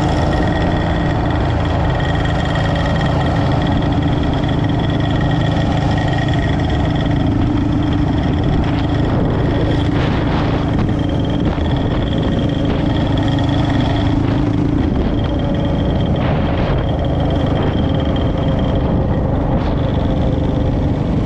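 A motor vehicle running steadily: a dense, continuous low rumble with a few steady tones over it, with no sharp changes.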